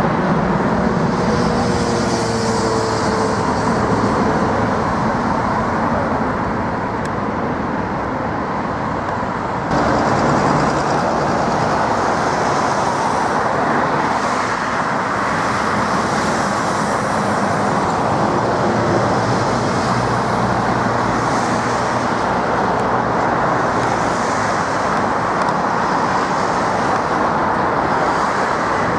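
Jet airliner engines at takeoff: a departing twin-engine jet climbing away with a faint engine tone, then an abrupt cut about ten seconds in to the steady rumble of another jet's takeoff, ending with a four-engined Boeing 747 climbing out overhead.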